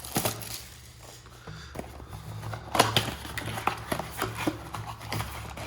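Cardboard blaster box of trading cards being torn open and the card packs pulled out: irregular tearing, rustling and light taps, busiest in the second half, over a steady low electrical hum.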